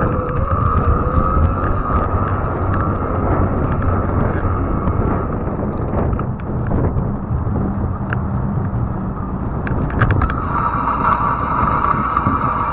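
Fat-tire e-bike riding on pavement: wind buffeting the microphone over a low tyre rumble. A steady high whine drops away in the middle and comes back near the end, with a few small clicks.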